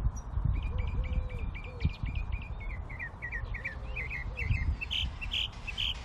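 Small wild birds chirping in the background: quick runs of short, high chirps and trills, several notes a second, over a low outdoor rumble.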